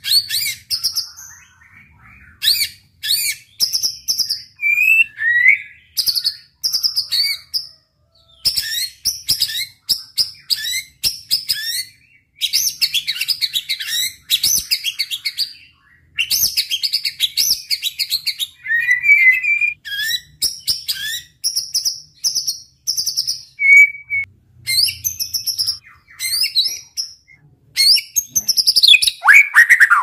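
Caged white-rumped shama singing loud, varied song phrases in bursts with brief pauses. The song mixes clear sliding whistles with rapid-fire runs of sharp repeated notes.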